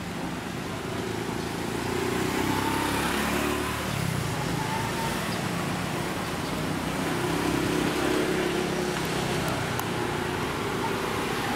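Road traffic: motor vehicles driving past on the street. Their engine noise swells twice over a steady traffic hum.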